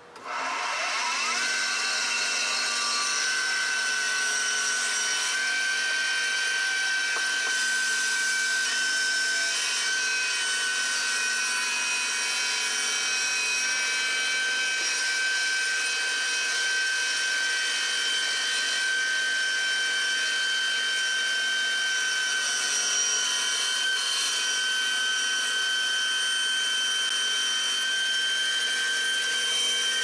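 Table saw switched on: the motor spins up over about a second, then runs steadily with a high whine.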